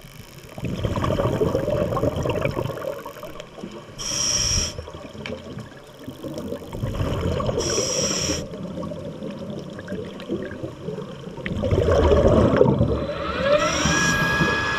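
A diver's breathing apparatus underwater: long rumbling bubble bursts on each exhale, and two short hissing inhales through the regulator with a high whistle. Near the end a rising tone settles into a steady whine.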